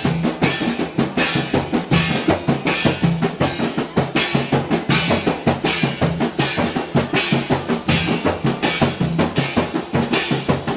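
An ensemble of large Mandar rebana frame drums struck by hand in a fast, dense, interlocking rhythm. A cymbal struck with a stick crashes on a steady beat over them.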